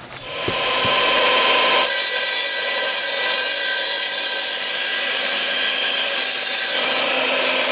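Power saw cutting a paver: the motor spins up, the blade bites into the paver about two seconds in with a harsh, steady grinding whine, and the cut ends about seven seconds in with the motor still running.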